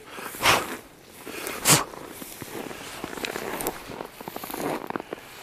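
Footsteps crunching through snow, with two loud steps in the first two seconds and then lighter, scattered crunching.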